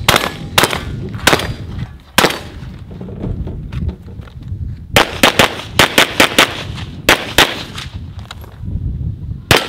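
A competition shooter's gunfire: three shots from a shouldered long gun about a second apart, then a pause of a couple of seconds. Next comes a fast string of about nine handgun shots, and a single last shot near the end.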